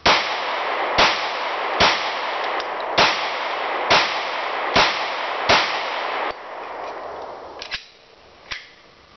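Seven shots from a semi-automatic handgun fired at a steady pace, about one a second, each ringing on into the next; the ring-out dies away after the last shot, and a few faint clicks follow near the end.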